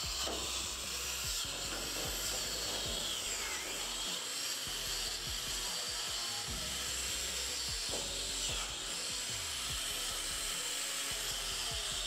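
Power tool grinding steel clean before welding, a steady hiss that keeps up throughout.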